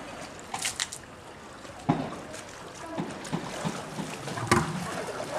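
Polar bears splashing in a pool: water sloshing with a few sharper splashes, the loudest about four and a half seconds in, over faint onlookers' voices.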